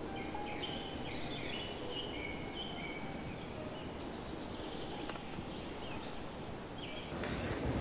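Small birds calling in short, high chirps over a steady outdoor background hiss. Near the end, a louder low rush of wind on the microphone comes in.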